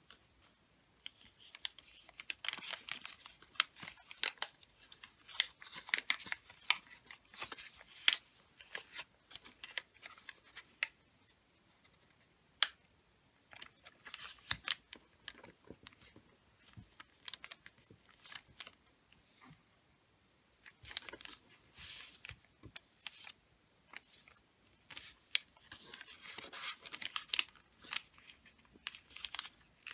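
A sheet of wrapping paper being opened out, folded and creased by hand on a table: spells of rustling and crinkling with sharp crackles, broken by short pauses.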